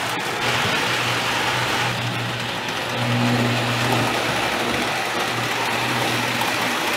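Marx O-27 tinplate toy train running on its track, its wheels rolling on the metal rails with a steady hum from the electric motor that swells as the cars pass close by.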